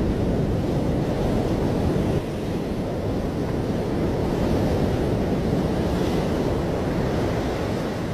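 Stormy sea: waves surging and wind buffeting the microphone, a steady low rumbling roar that drops a little in level about two seconds in.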